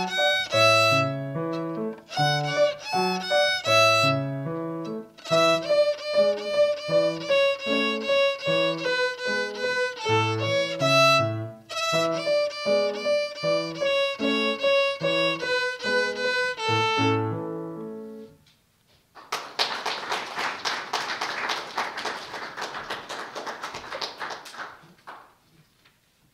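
Violin with piano accompaniment playing a simple fiddle tune that ends about two-thirds of the way through. After a brief pause, a small audience claps for several seconds, and the applause dies away.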